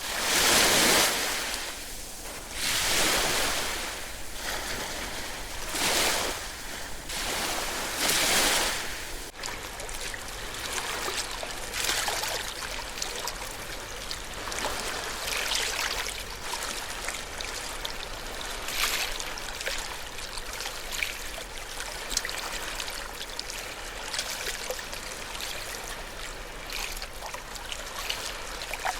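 Ocean waves breaking: four separate surges swell and fall away in the first nine seconds. After that comes a steadier fizzing, trickling wash of water with small crackles.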